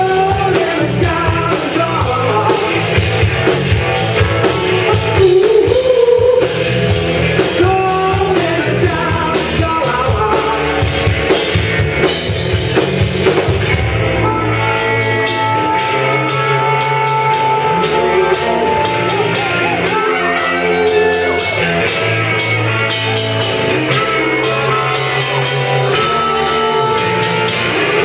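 Live rock band playing: electric guitars, bass guitar and drum kit, with a singer's voice over them.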